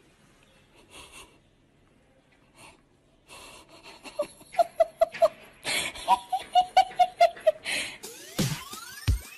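A person laughing in quick, breathy bursts, several short 'ha' sounds a second. Near the end, electronic music with sweeping tones and heavy bass hits starts.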